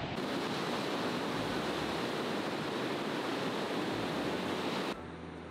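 Ocean surf breaking and washing up a sandy beach: a steady rush of surf that cuts off sharply about five seconds in.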